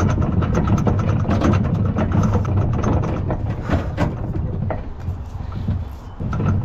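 A motor running steadily with a fast mechanical clatter of ticks; the sound drops off about six seconds in.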